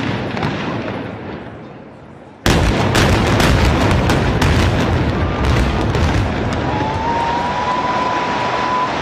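A rumble dies away over the first two seconds. About two and a half seconds in, a rapid series of sharp cracks from demolition explosive charges starts abruptly over a heavy rumble, the sound of a building implosion. Near the end a steady high tone sounds over the continuing rumble.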